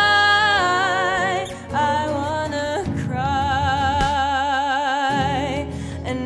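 A woman's voice singing long held notes with a wide vibrato over a strummed acoustic guitar. A long note opens, shorter sung phrases follow about two seconds in, and a second long wavering note is held from about three seconds.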